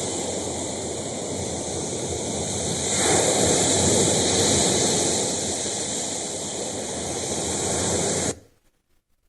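Recording of ocean waves: a steady wash of surf that swells about three seconds in, easing off afterwards, then cuts off suddenly near the end.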